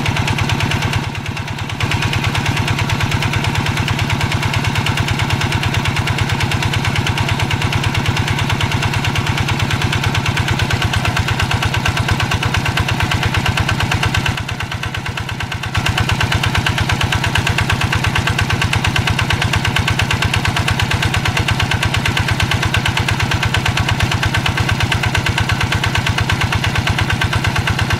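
Single-cylinder diesel engine of a two-wheel hand tractor running steadily with a fast, even thudding beat while it plows paddy mud. It goes briefly quieter twice, about a second in and again about halfway through.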